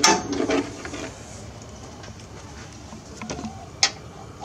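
A ratchet strap being taken off a trailer load: the webbing scrapes and slides, with a burst of clicks and rattles at the start and a couple of sharp clicks near the end.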